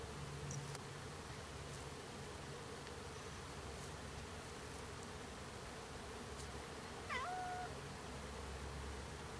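A Burmilla cat gives one short meow about seven seconds in; the pitch dips, then holds level.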